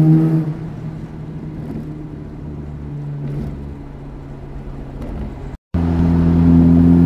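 Mazda RX-8's two-rotor rotary engine driving along: loud on the throttle at the start, easing off to a quieter, lower note for several seconds, then loud and steady again after the sound cuts out for a split second about five and a half seconds in.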